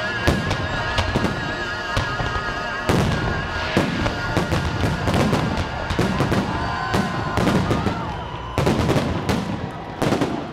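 Salute fireworks bursting in a dense barrage, many sharp bangs and crackles in quick succession, with wavering whistling tones in the first seconds. A final cluster of heavy bursts comes near the end, then the barrage dies away.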